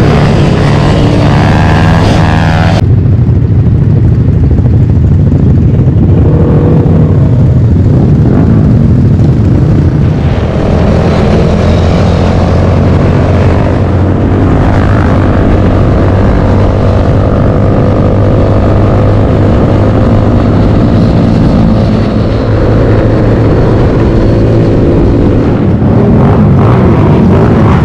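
Motorcycle engines running during a group ride, loud and continuous, with the engine pitch rising and falling as riders rev and ride.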